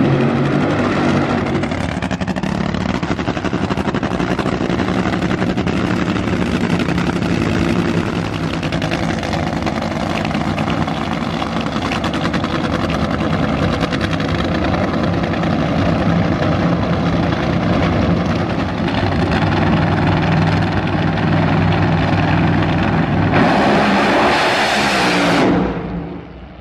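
Nitromethane-burning supercharged V8 engines of nitro Funny Cars running loud and steady behind the starting line. About 23 s in, one goes to full throttle in a sudden, much harsher blast for a couple of seconds that then drops away quickly as the car leaves.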